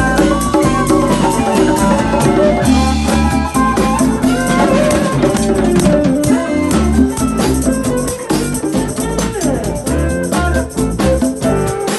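Instrumental music: a drum kit played busily with many quick hits under guitar and deep sustained bass notes.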